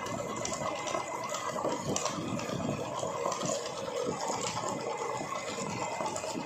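Meat grinder driven by an electric drive motor, running steadily with a continuous rattling, churning noise.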